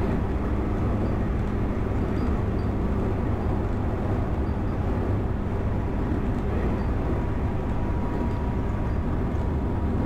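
Electric train running at speed, heard from behind the driver's cab: a steady low rumble of wheels on rail and running gear. A thin steady whine joins about seven seconds in.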